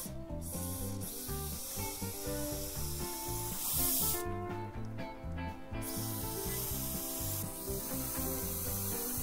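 Aerosol deodorant can spraying with a hiss in bursts, loudest about four seconds in, over background music.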